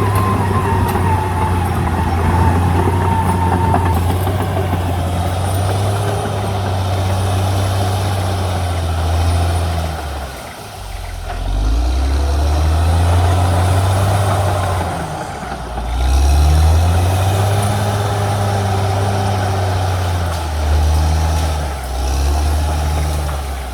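Caterpillar D6R XL bulldozer's diesel engine working hard, its pitch sagging about halfway through and then climbing back up several times as it revs. A high whine sounds over the engine for the first few seconds.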